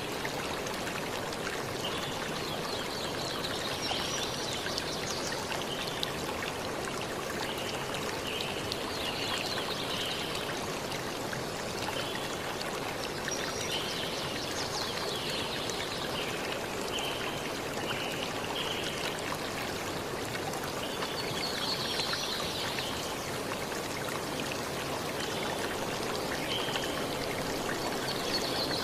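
Rain falling steadily on grass and leaves: an even, unbroken hiss of water. Short high chirps come through every few seconds.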